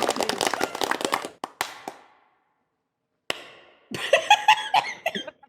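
Homemade layered applause made of many overlapping hand claps with added reverb, stopping about a second in and dying away in a reverberant tail. After a pause, a single reverberant clap, then a few more claps mixed with a voice near the end.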